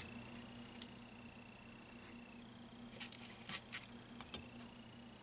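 Faint small clicks and taps from handling electronic components at a workbench, a few of them about three to four and a half seconds in, over a low steady hum and a faint high whine that comes and goes.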